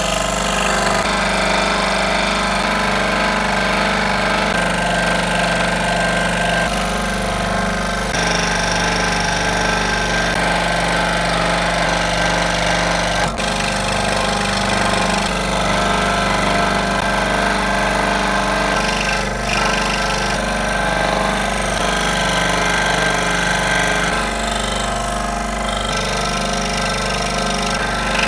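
Electric woodworking power tool running continuously, its tone changing abruptly a few times.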